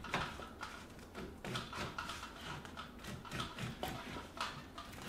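Spline roller pressing spline and insect screen into the channel of a screen frame, with irregular small clicks and taps as it rolls along.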